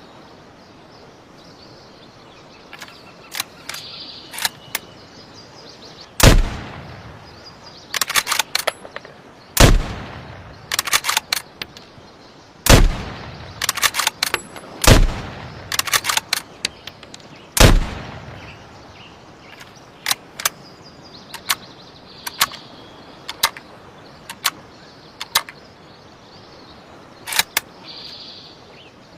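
Mosin-Nagant bolt-action rifle (7.62×54mmR) fired five times, about two to three seconds apart. After each shot comes a quick run of metallic clicks as the bolt is worked to chamber the next round. More scattered bolt and metal clicks follow in the last ten seconds.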